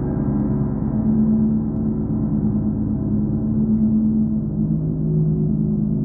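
Large hanging gongs ringing in a sustained wash of low tones that swell and shift in pitch, with no sharp strike.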